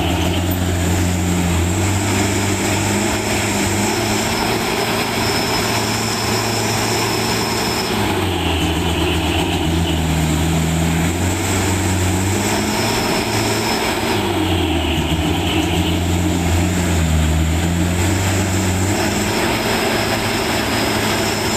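A truck's diesel engine running hard under load, its pitch dropping and rising several times as it labours, with a thin high whine that comes and goes above it.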